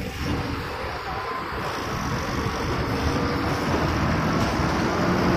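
Heavy diesel truck engines running over road noise, from a moving vehicle on a hill road. The sound slowly grows louder as a multi-axle lorry rounds the hairpin and passes close by.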